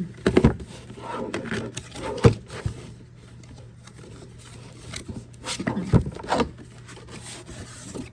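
Cardboard perfume box being opened by hand: rubbing and scraping of the packaging with a few knocks, in clusters near the start, around two seconds in and around six seconds in.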